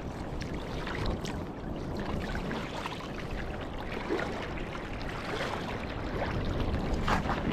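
Water trickling and sloshing around a kayak as the paddle dips and drips, with a few brief splashes.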